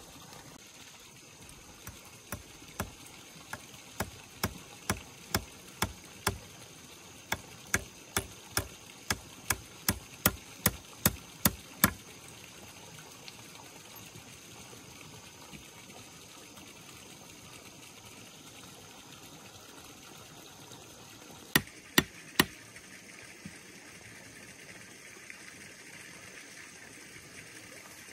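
A series of sharp strikes, about two to three a second and getting quicker, for some ten seconds, then three more blows about twenty seconds in, over the steady sound of running water.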